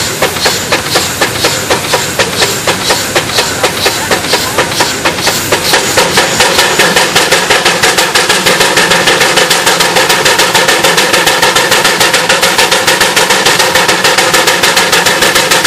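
Steam traction engine running in place, its exhaust chuffing in an even beat of about three a second, then quickening to roughly twice as fast some five to six seconds in, when a steady mechanical hum joins it.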